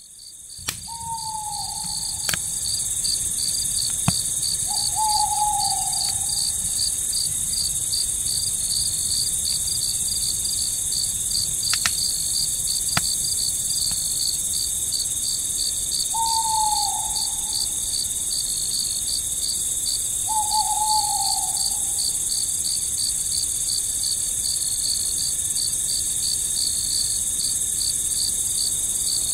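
Crickets chirping in a steady pulsing chorus, fading in at the start. An owl hoots four times, each a short falling note, in two pairs: near the start and again just past the middle. A few sharp pops from the wood campfire come in the first half.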